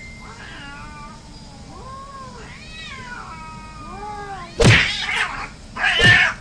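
Two domestic cats, an orange tabby and a grey tabby, in a standoff: long wavering yowls that glide up and down in pitch. About four and a half seconds in they break into a fight, with two loud, harsh squalls.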